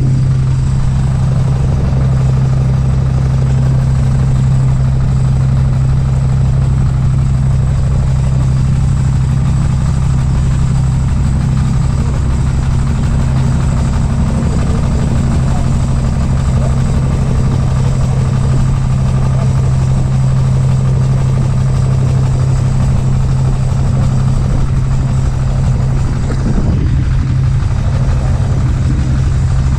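Small boat's engine running steadily with a constant low hum.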